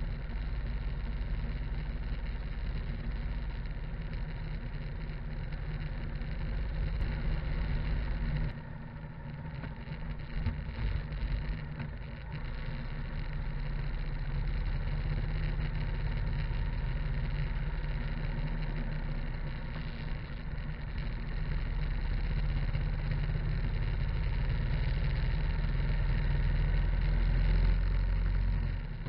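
Harley-Davidson V-twin motorcycle engine running on the move, with wind and road noise. The sound falls away sharply about eight seconds in and picks up again a few seconds later. It builds to its loudest near the end.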